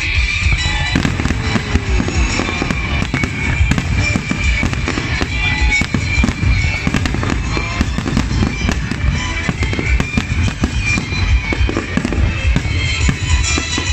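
Fireworks going off in a dense, continuous barrage of bursts and crackling, with music from the show playing underneath.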